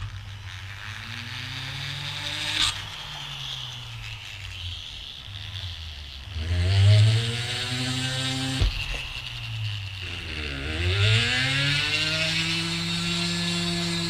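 Vevor 780W flex shaft grinder running, its motor speed rising and falling again and again as the foot pedal is worked, with the bit grinding into wood. Two sharp clicks stand out, one about a third of the way in and one a bit past halfway.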